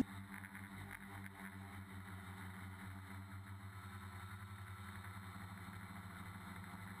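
Tricopter's electric motors and propellers running in flight, heard as a faint, steady low hum with a slight regular pulsing.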